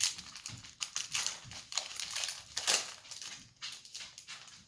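Crinkly wrapper of a baseball card pack being torn open and handled, in a run of irregular crackles and rustles.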